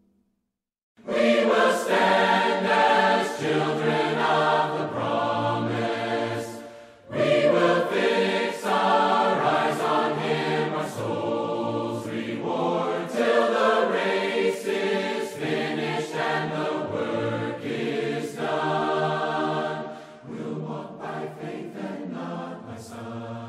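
Choir of mixed voices singing a hymn in harmony, a cappella, starting about a second in after a brief silence; it grows quieter near the end.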